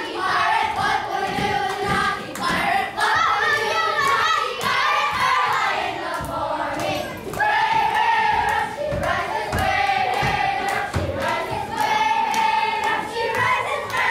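A group of children singing a song together in unison, holding long high notes, with feet thudding on the stage floor as they dance.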